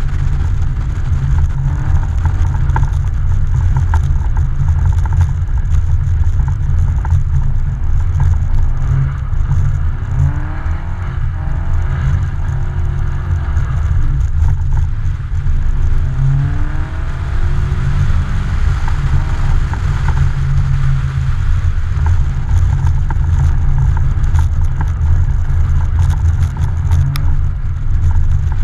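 A car engine revving on ice, its pitch rising and falling several times as the car is powersliding, over a loud steady low rumble. It is heard from a camera mounted on the outside of the car.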